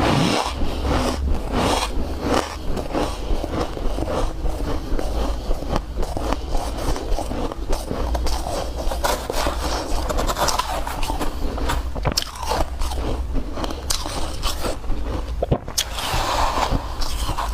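Close-miked biting and chewing of real snow: a dense, irregular run of crisp crunches and scraping throughout.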